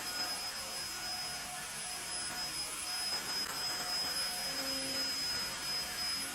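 Cordless wet-dry floor vacuum running steadily: a constant rush of air with a thin, high whine held at one pitch.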